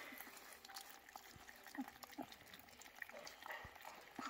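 Twenty-day-old puppies eating soft food from a trough, with faint wet smacking and lapping: scattered small clicks and short blips.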